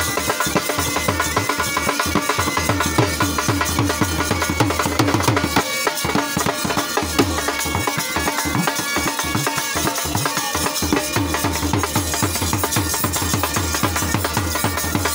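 Loud music with heavy drumming and a steady, driving beat.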